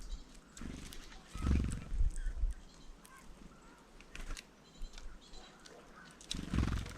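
Small birds at a feeder giving faint, short high chirps now and then, with two louder low thumps, one about a second and a half in and one near the end.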